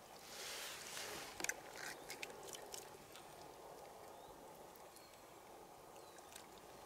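Faint wet squishing, rustling and a few small clicks from hands gutting a grayling with a small knife, mostly in the first three seconds. After that only a faint steady hiss remains.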